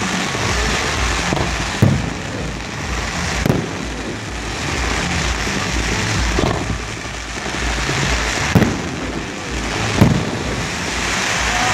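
Aerial fireworks going off: a continuous crackle of bursting shells, with four sharp booms spread through it.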